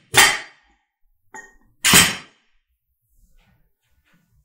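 Short bar loaded with bumper plates knocked and shifted on a floor mat as it is gripped and lifted: two short knocks about two seconds apart, the second with a faint metallic ring.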